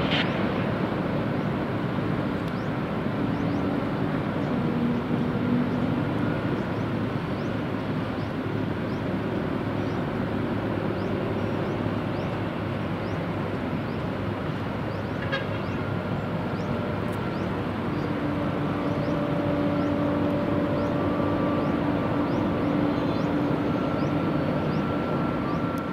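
Steady roar of city road traffic, a continuous din with a few held horn-like tones, one short and one longer in the last third.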